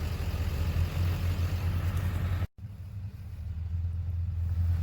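Truck engine running steadily with a low hum while a stuck truck is dragged free. It cuts off abruptly for an instant about halfway through, then carries on slightly quieter.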